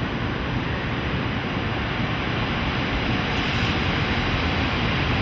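JNR Class EF65 electric locomotive creeping into a station platform: a steady rumble and hiss of the locomotive and its wheels on the rails, growing a little louder as it draws near, with a brief faint high hiss about three and a half seconds in.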